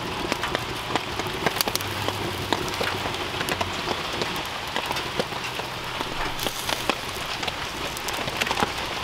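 Steady rain falling, dense with sharp ticks of drops striking hard surfaces close by.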